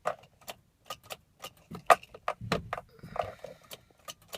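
Irregular light clicks and jingles from a car key ring at the ignition and the interior controls, with no engine cranking.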